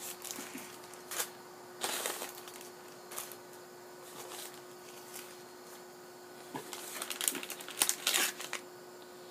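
Packaging being handled and pulled open by hand: short rustling, crinkling bursts at scattered moments, thickest in the last few seconds, over a faint steady hum.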